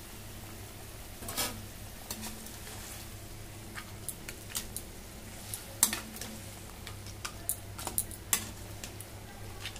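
A perforated steel spatula stirs a thick fish-head curry in a steel kadai, giving irregular sharp clicks and scrapes of metal on metal from about a second in, with the curry simmering and sizzling. A steady low hum runs underneath.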